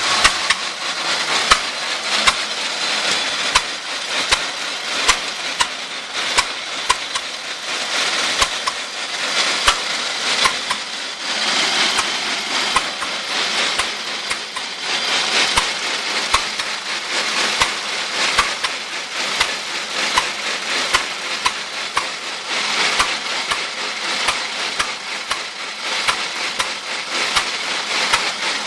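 Old engine-driven farm machinery running, likely the restored Letz feed grinder. It makes a steady clattering noise with frequent sharp knocks at uneven spacing.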